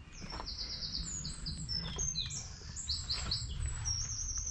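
A small songbird singing: bursts of fast, high repeated notes and short trills, several phrases in a row, over a low background rumble.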